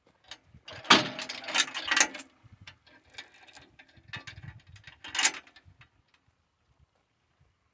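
Metal clattering and clicking from a garlic seed drill's mechanism being handled. The loudest burst of rattling comes about a second in, followed by scattered clicks and a short rattle about five seconds in.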